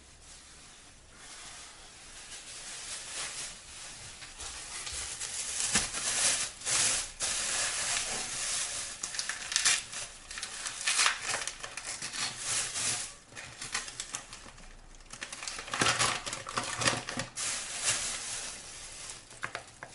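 Kitchen handling noise as flour is fetched and added to yeast dough: rustling and crinkling of a flour bag mixed with irregular knocks and scrapes. It is quiet for the first couple of seconds, then busy, with several louder bursts of clatter.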